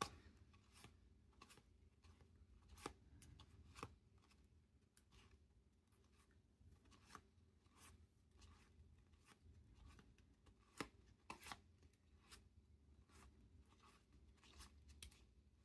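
Faint flicks and soft clicks of paper trading cards being thumbed off a stack one at a time and slid onto a second pile, in an irregular patter with a few sharper snaps scattered through.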